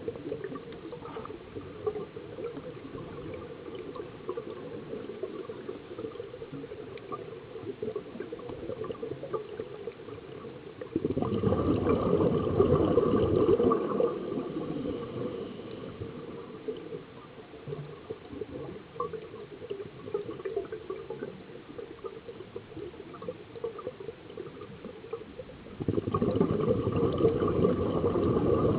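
Scuba diver exhaling through a regulator underwater: two bursts of rushing, bubbling air of about three seconds each, about 11 seconds and 26 seconds in. Between the bursts there is a steady low underwater hiss with light crackling.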